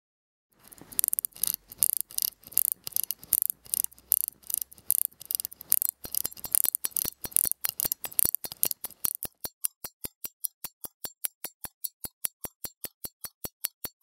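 Molnija 3602 pocket watch movement ticking, a fast, even run of sharp, bright ticks. The ticks start about half a second in; about nine seconds in they turn quieter and cleaner.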